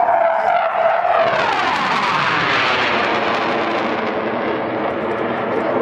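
BAE Hawk jet trainer passing overhead. The jet noise sweeps down in pitch one to two seconds in as it goes by, swells to its loudest rushing sound two to three seconds in, then eases off.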